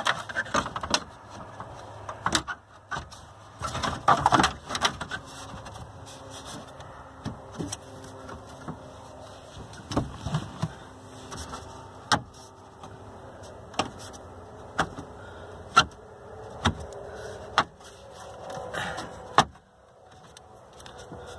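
Plastic dash trim bezel being pressed into place, its retaining clips snapping in: a string of separate sharp clicks and knocks with plastic rubbing and rustling in between.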